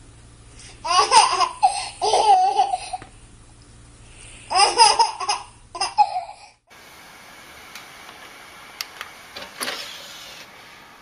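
Baby laughing in two bouts of high-pitched giggles, the second ending about six seconds in; after that only a few faint clicks.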